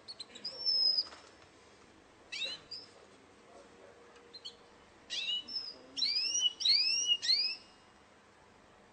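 Russian song canary singing in short phrases. It gives a drawn whistle near the start and a brief call about two and a half seconds in, then a run of four or five repeated curving whistled notes from about five seconds in.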